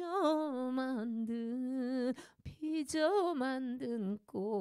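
A woman singing a slow trot melody unaccompanied, drawing out long, smoothly linked notes with a wavering vibrato. The singing breaks off briefly about two seconds in, then a second phrase starts a little higher and falls back.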